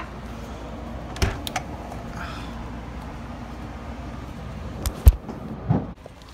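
A few knocks and handling bumps over a steady low hum, with one sharp knock about five seconds in, the loudest sound, followed by a duller thump.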